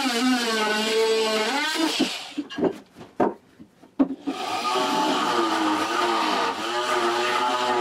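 Oscillating multi-tool buzzing as it saws through the bullnose of a stair tread, its pitch sagging as the blade bites. It stops about two seconds in, a few knocks follow, and it starts buzzing again just after four seconds.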